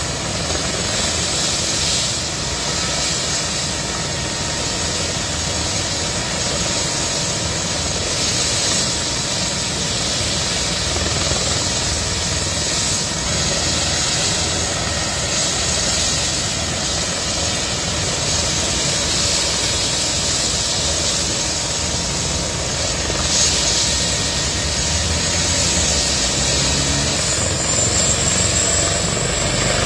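Airbus H135 air ambulance helicopter running on the ground, its turbines and spinning rotor making a steady noise with a high turbine whine. Near the end the whine rises slightly in pitch.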